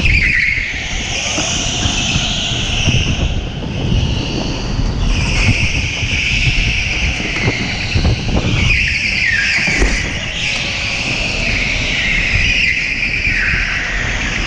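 Electric go-karts running flat out at close quarters: a high-pitched whine that dips and rises several times as they brake and accelerate, over a steady low rumble.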